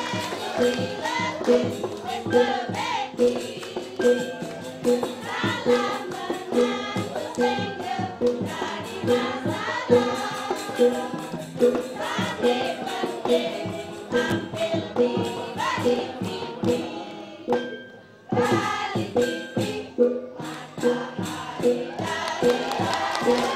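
A group of women chant and sing a cheer routine in unison over music with a steady beat of about two strokes a second. It breaks off for a moment about three-quarters of the way through, then starts again.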